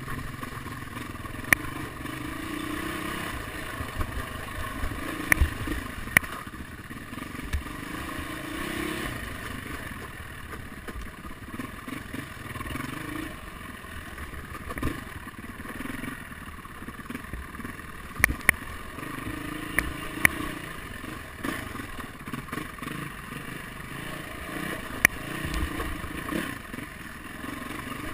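Dirt bike engine on a trail ride, revving up and easing off again and again with the throttle. Sharp knocks and clatter come through as the bike goes over the rough ground.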